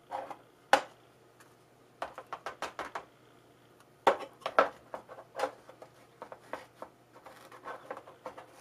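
Hands handling small objects: light clicks and taps, with a quick run of about half a dozen about two seconds in and another cluster a couple of seconds later.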